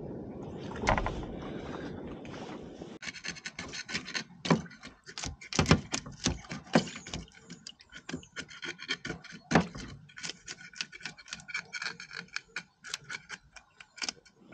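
Wind and water noise on a small boat with a single knock about a second in; then, from about three seconds in, a metal scaler scraping the scales off whole bream in a tub of water, a quick irregular run of short scraping strokes with a few louder ones.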